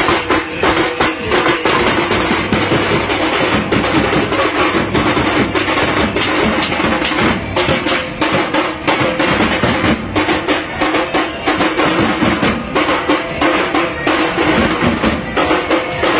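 Teenmaar street drum band playing a fast, driving rhythm on snare drums and a large stick-beaten drum, dense strikes without a break, with a steady tone running underneath.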